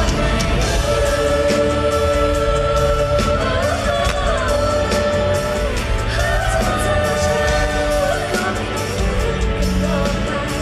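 Live pop song performance: a woman singing into a handheld microphone over band music with a steady beat, heard through the concert PA, with long held notes.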